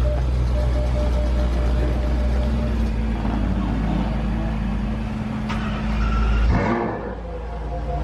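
Maserati Levante Trofeo's twin-turbo V8 running at idle with a steady deep drone. About six and a half seconds in it swells briefly, then the deep low part of the sound drops away.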